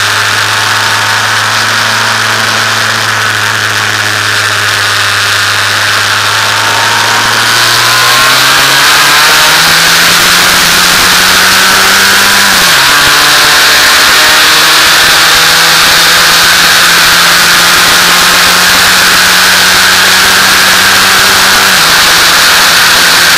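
F2000 formula car's four-cylinder engine under load, heard onboard with heavy wind noise. It runs steady, then accelerates with a rising note, and drops sharply at a gearshift about twelve seconds in. After that it holds a flat, unchanging note with another drop near the end: the engine is held at about 5000 rpm by an electronic glitch that caps the revs.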